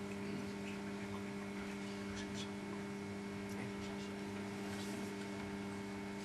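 Steady electrical hum over a low even hiss, with a few faint ticks about two seconds in.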